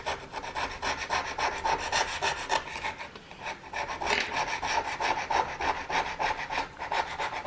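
Rapid back-and-forth scraping and rubbing as old glue residue is cleaned off the iPad Pro's frame, with a brief let-up about three seconds in.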